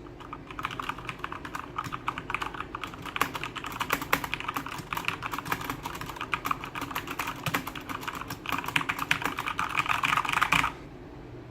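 Fast typing on a Corsair K70 LUX RGB mechanical keyboard with Cherry MX Brown switches (tactile, not clicky): a steady run of rapid keystrokes that grows denser for the last two seconds or so and stops about a second before the end.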